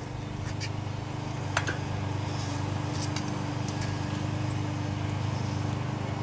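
Steady low mechanical hum, with a few faint light clicks of a steel feeler gauge being worked between a rocker arm and a valve stem.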